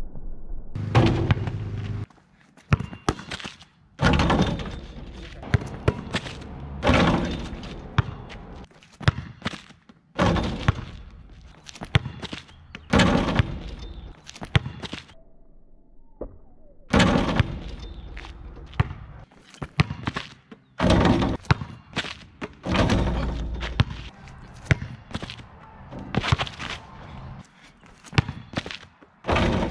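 Repeated impacts from dunk attempts on a portable basketball hoop: the basketball bouncing and the rim and backboard slamming and rattling, recurring every few seconds.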